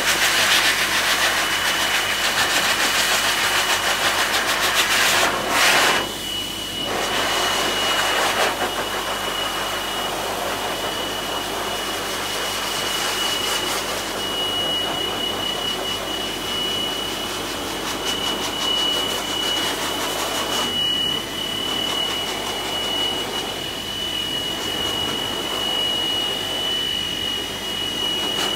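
A high-velocity pet force dryer blasting air through a dog's coat: a steady rush of air with a thin high motor whine. It is louder for the first six seconds or so, then runs a little quieter as the nozzle is moved over the body.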